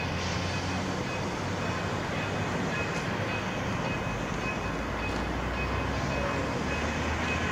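Narrow-gauge K-36 steam locomotive at slow speed, steam hissing steadily from its open cylinder cocks over a constant low rumble.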